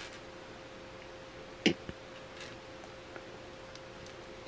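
Plastic building bricks clicking as pieces are picked from a loose pile and pressed together: a few small sharp clicks, the clearest just under two seconds in, over a faint steady hum.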